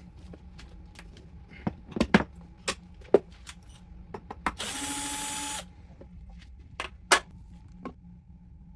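A series of sharp clicks and knocks, as of handling tools and parts. About halfway through, a small electric motor whirs steadily for about a second, then a few more knocks follow.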